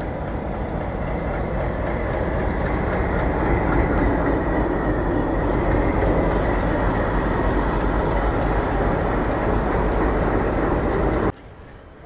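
A passenger train hauled by twin ALCO WDM3D diesel locomotives pulls out and rolls past close by, a steady loud rumble of wheels and coaches that grows louder over the first few seconds. The sound cuts off suddenly near the end.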